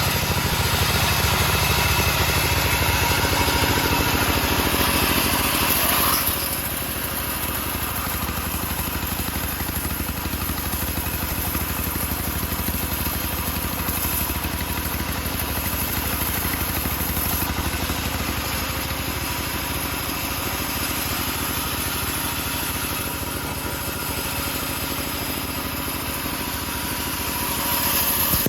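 Engine-driven homemade bandsaw sawmill running while ripping teak logs. It runs louder for about the first six seconds, drops to a steadier, lower level, and swells again just before the end.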